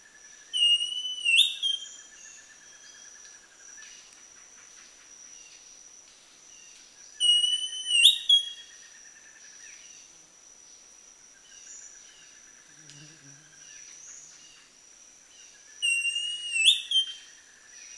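Northern Schiffornis singing three clear whistled phrases about seven seconds apart, each a held note that slides up to a higher ending. A steady high insect-like whine and a soft repeated trill run underneath.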